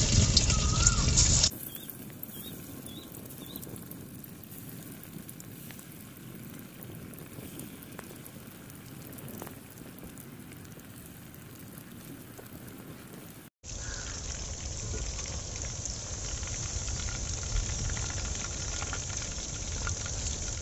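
Marinated chicken pieces deep-frying in hot oil in a wok: a steady sizzling hiss of bubbling oil. The level drops abruptly about a second and a half in and rises again after about 13 seconds.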